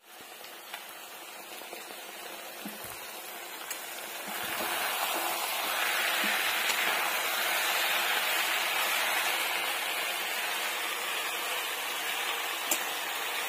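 Small kachki fish with onion, tomato and chillies frying in oil in a steel kadai: a steady sizzle that grows louder about four seconds in. A spatula clicks against the pan near the end.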